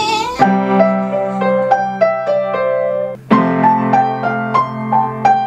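Piano being played: a phrase of single melody notes over held low notes, which breaks off briefly about three seconds in and then starts again. It opens on the tail of a whiny, wavering moan.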